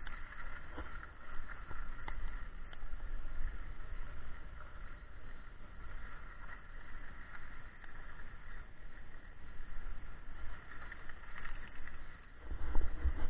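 Skis sliding and scraping over groomed, corduroy snow, with wind rumbling on the microphone from the speed of the descent. The rumble swells louder a little before the end.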